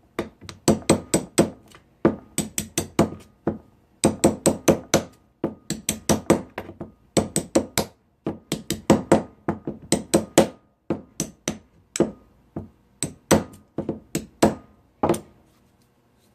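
Small hammer striking an old pneumatic impact wrench in quick runs of sharp blows, about three or four a second with short pauses between runs, to knock a stuck internal piece loose. The blows stop about fifteen seconds in.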